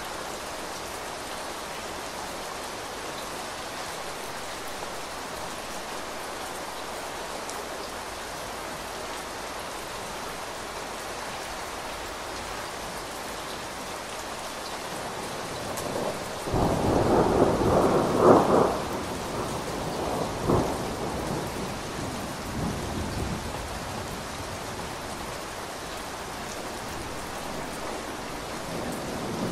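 Heavy rain falling steadily on a window. A little past halfway a peal of thunder breaks in, loudest about two seconds later, then rolls on in fainter rumbles for several seconds.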